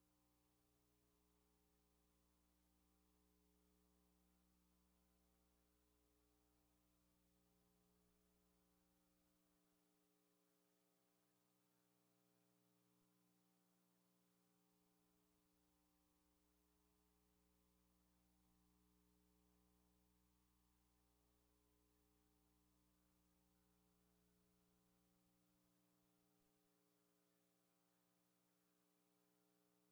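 Near silence with a faint, steady electrical mains hum.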